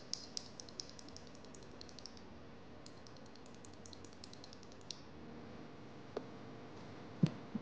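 Quick runs of small, sharp plastic clicks and ticks from a Cherry Orange mechanical keyboard switch being worked between the fingers. Near the end come a few louder knocks as switches are pressed into the keyboard plate.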